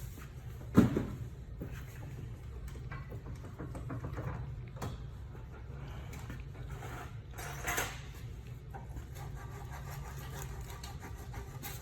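Workshop handling noise: one loud knock about a second in, then scattered small clatter and a brief rustle about three-quarters of the way through, over a steady low hum.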